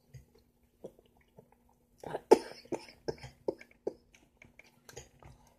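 A woman coughing in a string of about five sharp coughs, about three a second, starting about two seconds in, then trailing off into fainter ones. She is choking on melon juice while laughing.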